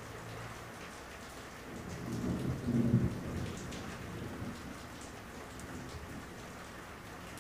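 Steady heavy rain with dripping water, and a roll of thunder that swells about two seconds in, peaks, and rumbles away over the next second or two.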